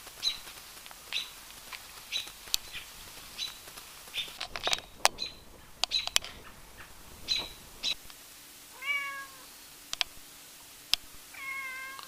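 Short, high bird chirps repeating about once a second, then a cat meows twice near the end.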